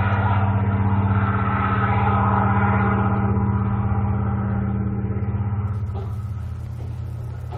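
A recorded aircraft engine drone played back through a small loudspeaker. It holds a steady low hum, then fades out over the last couple of seconds.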